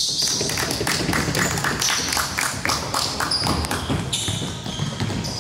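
Basketball players running on a hardwood gym floor: a dense patter of footfalls and sneaker squeaks, mixed with the ball being dribbled.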